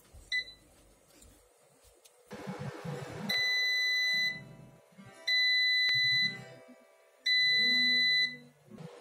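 Kmart digital air fryer beeping three times, each a steady high beep about a second long, to signal that the cooking cycle is finished. A short control-panel beep comes just after the start.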